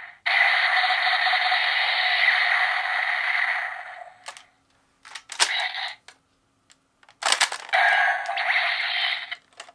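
GabuGabu Revolver toy playing electronic sound effects through its small speaker. A long hissing blast fades out by about four seconds in, followed by a few sharp mechanical clicks and short bursts from the toy's moving parts, then a second hissing effect near the end.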